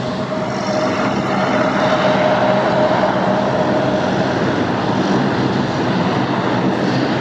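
Four-engine turboprop (WP-3D Orion, Allison T56 engines) running as it taxis: a steady whine over constant engine and propeller noise.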